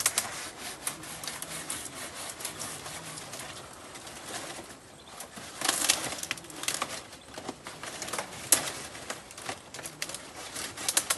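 Dry palmyra palm fronds rustling, crackling and snapping as they are pulled and cut by hand with a small knife. The crackles come irregularly, loudest about six seconds in and again about eight and a half seconds in.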